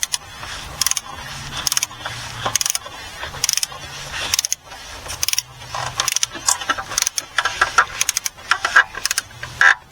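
Torque wrench ratcheting in short strokes, clicks coming in groups about once a second, as it tightens the oil filter housing cap toward 18 foot-pounds.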